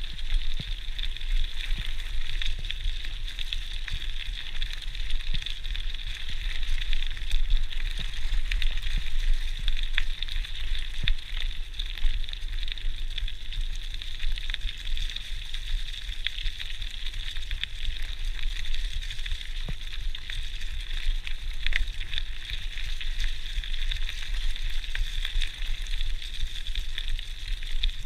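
Mountain bike tyres rolling steadily over a gravel and leaf-covered track: a continuous crackling hiss peppered with small clicks and rattles, with a low rumble underneath, picked up by a chest-mounted GoPro.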